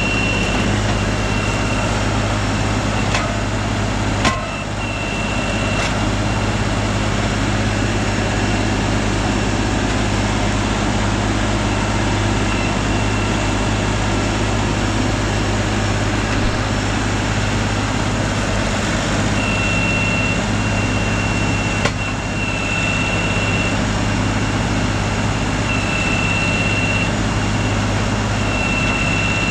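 LS compact tractor's diesel engine running steadily as its loader grapple works a pile of logs. A high thin whine comes and goes several times, and there are a few sharp knocks, the loudest about four seconds in.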